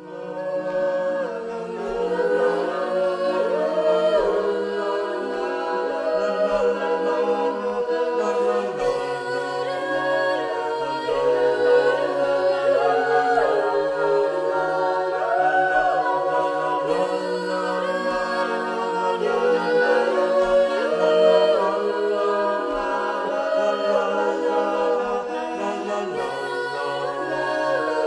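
Mixed-voice a cappella vocal ensemble of ten singers in close, sustained harmony: low notes held underneath while upper voices move and swell. The singing comes in right at the start, rising out of silence over the first second or so.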